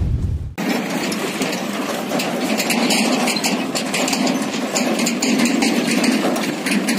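A deep low rumble cuts off sharply about half a second in. Then a Mahindra 575 DI tractor's four-cylinder 2730 cc diesel engine runs steadily, pulling a loaded trolley.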